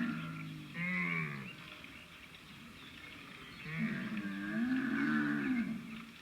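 Camel calling: a short falling call about a second in, then a longer, deep call that rises and falls in pitch.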